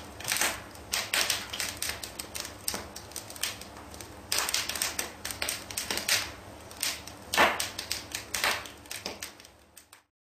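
Wood fire crackling in a fireplace: irregular sharp pops and snaps over a soft hiss, with one louder pop about seven seconds in, stopping suddenly near the end.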